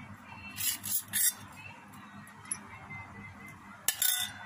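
Metal spoon clinking and scraping against a stainless steel bowl in short bursts: two about a second in, and another near the end.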